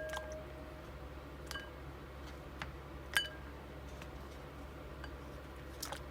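About five light clinks of hard items knocking against a bowl, each with a short ring, the loudest a little past three seconds in, over a low steady hum.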